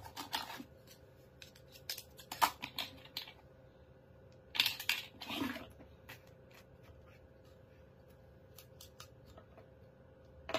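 Wooden toy cash register being handled: scattered small clicks and taps as its keys are pressed and its cash drawer is worked, with two short scraping sounds about five seconds in.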